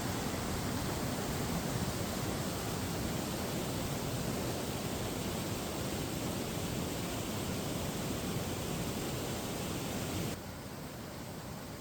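Steady rushing of a waterfall and river's falling water, an even roar without distinct events; about ten seconds in it suddenly drops to a quieter, duller rush.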